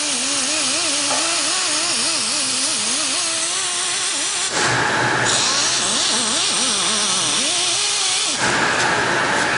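Angle grinder running, its motor pitch wavering up and down as the disc is pressed against skin to grind off a tattoo. The sound turns suddenly harsher and louder about four and a half seconds in and again near the end.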